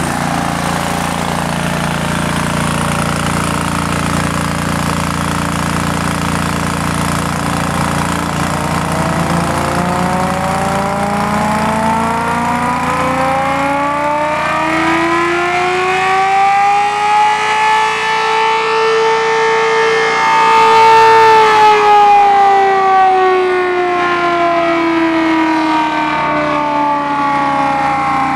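Home-made air raid siren with some rotor holes fluted, winding up into a loud wail. The pitch rises slowly for about ten seconds, holds at its peak for a few seconds, then winds slowly back down.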